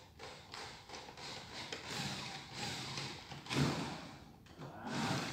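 Irregular knocks, scrapes and clatter from hands working on a wooden speaker box and its metal fittings, with a louder thump about three and a half seconds in.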